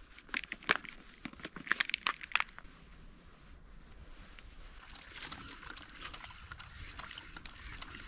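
Handling of a hand-pump water filter and its bottle: a few sharp plastic clicks and knocks over the first couple of seconds, then a steady hiss of trickling water that slowly grows louder.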